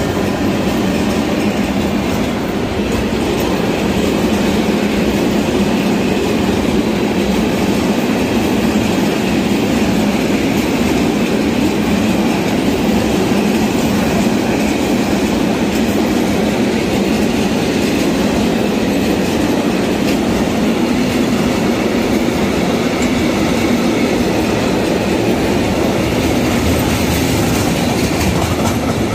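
Long freight train of Eamos open high-sided wagons rolling past close by, a loud steady rumble and clatter of wheels on the rails.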